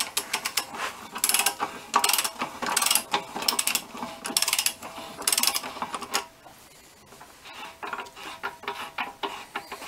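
Ratchet wrench clicking in repeated back-and-forth strokes, about one every 0.7 s, as it turns the nut of a bearing puller to draw the drive shaft bearing up out of an OMC Cobra sterndrive lower unit. The strokes stop about six seconds in, followed by fainter ticking.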